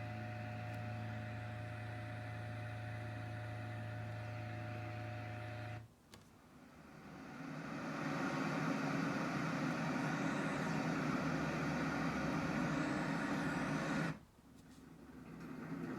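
Letsfit TP1 sleep sound machine playing its built-in sounds through its speaker, switching between them: a steady hum with a few steady tones stops abruptly about six seconds in. A steady noise then fades in and plays until about fourteen seconds in, when it also cuts off and another steady sound begins fading in.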